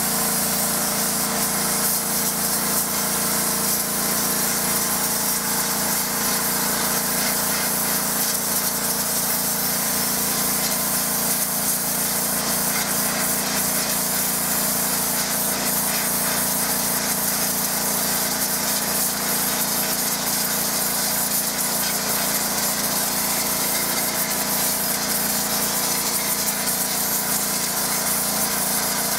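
Petrol pressure washer running steadily at full pressure: the engine's even drone under the hiss of the high-pressure water jet.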